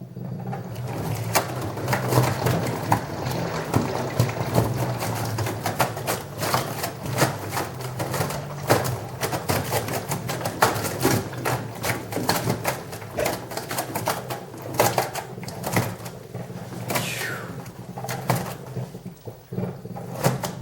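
LG washing machine in a hard, unbalanced spin: a steady low hum with dense, irregular knocking and rattling throughout. It starts abruptly and dies away near the end.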